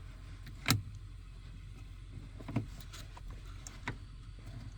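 Tilt steering column of a 2005 Dodge Ram 2500 clunking as the wheel is moved through its positions, freshly repaired and working again: three knocks, the loudest about a second in, over a low steady hum.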